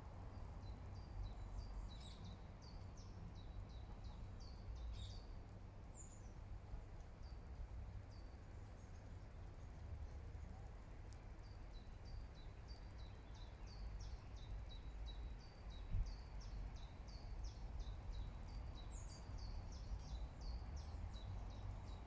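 A small songbird singing long runs of quick, high chirping notes, twice, the second run starting about halfway through, over a steady low rumble. A single click about two-thirds of the way through.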